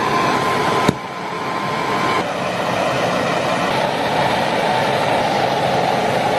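Steady hissing rush of two gas torch flames burning against a steel knife blade, with small jumps in level at edits about one and two seconds in.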